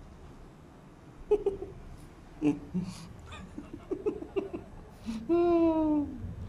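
Short bursts of a person's giggling laughter, then one long drawn-out call, about a second long, that drops in pitch at its end.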